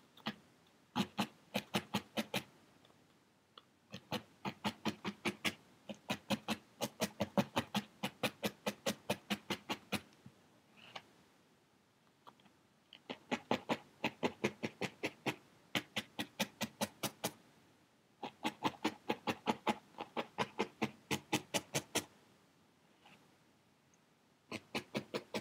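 Felting needle stabbing again and again through wool into a foam block, about five pokes a second, in runs of a few seconds with short pauses between. The wool is a flat disc being firmed up into a hat brim.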